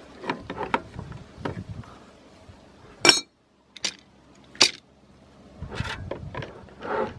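Metal objects being handled: scattered knocks and clicks, with two sharp metallic clinks about three and four and a half seconds in.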